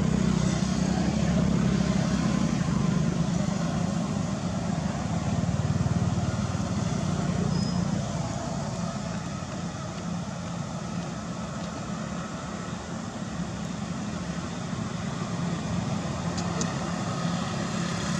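Steady engine hum of road traffic passing close by, loudest in the first few seconds and easing off through the rest.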